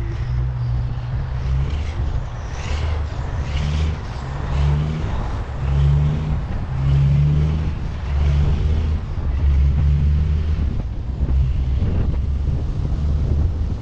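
Large diesel engine running steadily, its low note stepping up and down a little every second or two as the load changes.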